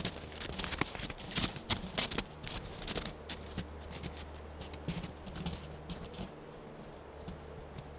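White-tailed deer footsteps crunching in crusted snow, a rapid crackle of steps that thins out over the first few seconds as the deer moves off, with a steady low hum underneath.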